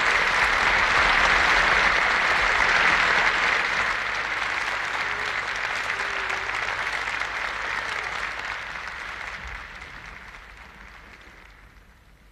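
Large studio audience applauding, the clapping dying away steadily over the last several seconds.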